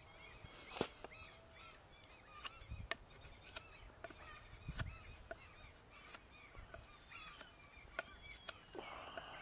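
Knife blade cutting and shaving the end of an ash bow stave, giving sharp separate clicks at uneven intervals, with birds calling repeatedly in the background.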